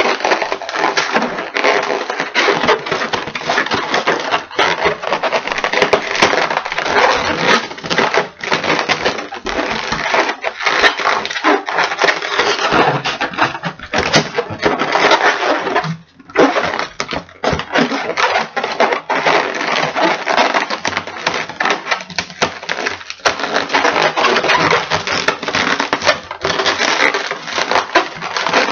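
A large yellow 646 twisting balloon being twisted and squeezed by hand, making pinch twists: a steady crackly rubbing and squeaking of the latex close to the microphone, with a short pause about sixteen seconds in.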